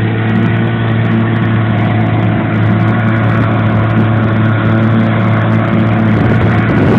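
Outboard motor of a small boat running steadily at cruising speed, a constant hum over the rush of water from the wake.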